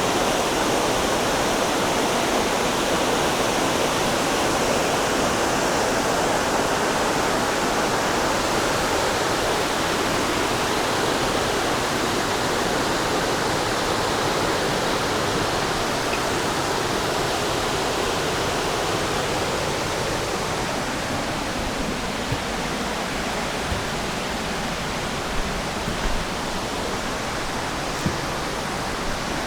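Waterfall on a mountain creek rushing in a steady hiss, easing slightly about two-thirds of the way through. A few faint knocks near the end.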